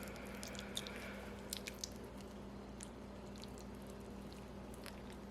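Faint wet squishing and small clicks of raw chicken drumstick meat being peeled off the bone by hand, over a steady low hum.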